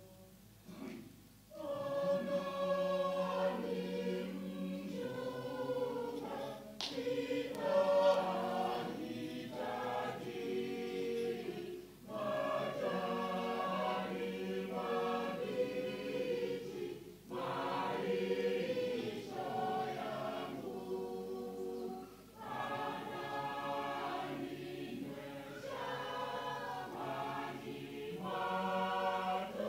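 Mixed church choir of men's and women's voices singing a hymn together. The singing starts about a second and a half in and goes on in phrases with brief breaths between them.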